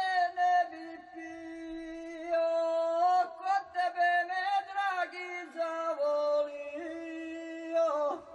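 Music: a single voice singing a slow melody, holding long notes with short slides between them.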